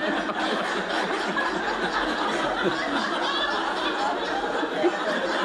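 A live audience laughing together at a joke.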